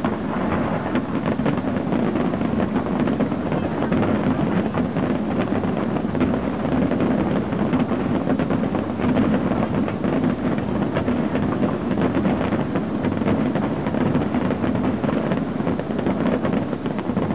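Distant fireworks barrage: many shell bursts running together into a steady rumble, with a constant crackle of small reports.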